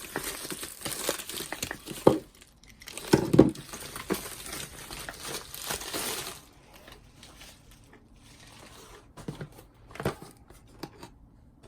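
Plastic packaging crinkling and rustling as it is handled, with a few knocks. The crinkling goes on for about six seconds, then drops to occasional soft clicks and rustles.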